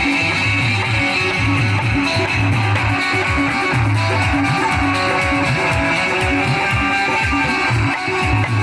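Instrumental break in an Indian folk song: a plucked-string melody over a steady rhythmic beat, with no singing.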